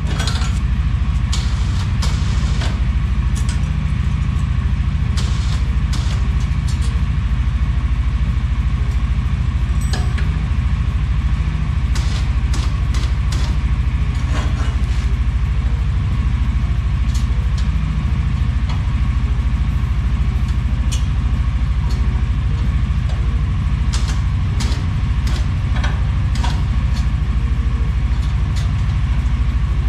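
Side-by-side UTV engine idling steadily, with occasional short metallic clicks and clinks over it.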